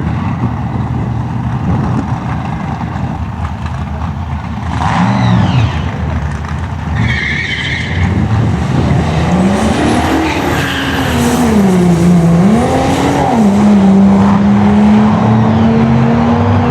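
Holden VP Commodore's engine at full throttle on a drag-strip pass. Its note climbs and drops back as the automatic gearbox shifts itself, then holds a steady, slowly rising note toward the end.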